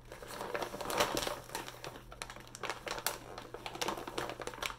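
Plastic beef jerky pouch crinkling and rustling as it is handled and turned, with irregular crackles and a few sharper ones.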